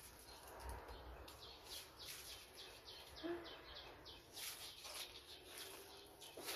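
Faint rustling of leaves and twigs in quick, irregular crackles as mango plums (marian plums) are pulled from the tree by hand.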